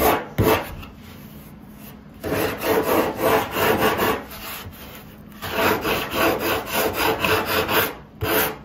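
A hand sanding block rubbing back and forth over the fiberglass patch on an epoxy windsurf board's nose. It goes in runs of quick, even scraping strokes with short pauses between. The edge of the fresh glass is being scuffed and brought to the board's curve, ready for filler.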